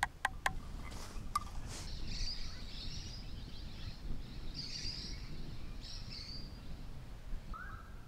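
A few light clinks of a plastic spoon against an enamel mug in the first half-second, then birds twittering and chirping from about two seconds in, with one short lower call near the end, over a low steady background rumble.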